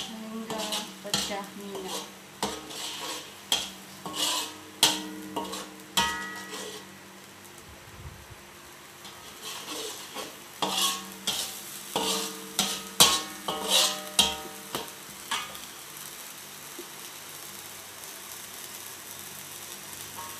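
A metal utensil scrapes and knocks against a pot as rendang ingredients are stirred in hot oil, a stroke about every half second with a short ringing after each. The strokes pause for a few seconds, start again, then give way to a steady sizzle near the end.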